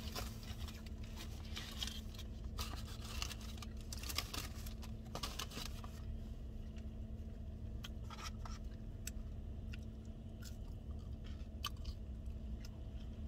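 A person chewing and biting into a chicken ranch wrap, heard close up as irregular small clicks and smacks of the mouth. A steady low hum runs underneath.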